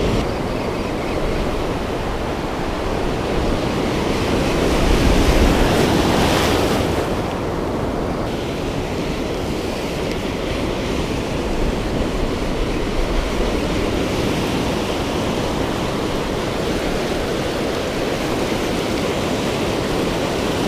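Ocean surf breaking and washing up the beach in a steady rush, with one wave swelling louder about five seconds in.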